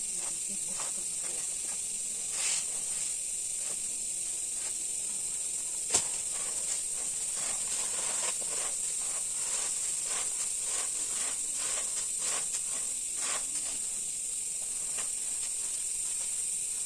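A steady high hiss, with scattered light clicks and rustles and one sharper click about six seconds in.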